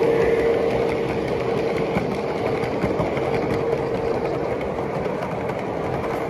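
Model trains running on a show layout: an even rolling hiss with faint clicks from the wheels and track. A steady, horn-like tone fades away over the first few seconds.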